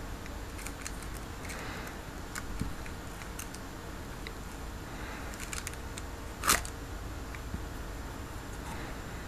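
Small plastic supplement bottles being handled: scattered faint clicks and rustles over a steady hiss, with one sharp click about six and a half seconds in.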